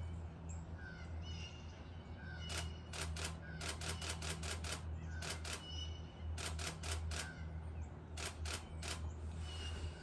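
Canon EOS 6D Mark II DSLR shutter firing in short bursts of several rapid frames, about five bursts, over a steady low hum. Small birds chirp faintly between the bursts.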